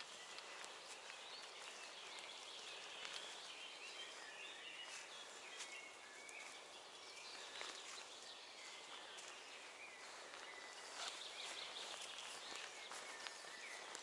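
Several songbirds singing in woodland, faint and overlapping, over a steady background hiss. Scattered soft clicks come from someone walking the grassy track.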